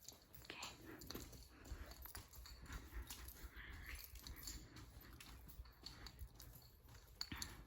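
Near silence: faint room tone with a low hum and a few soft clicks and rustles.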